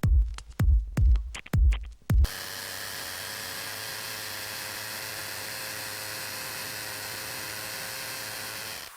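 Electronic music with a thumping beat for about two seconds. It then gives way abruptly to an electric power tool's motor running at a steady speed, with a steady whine and hum.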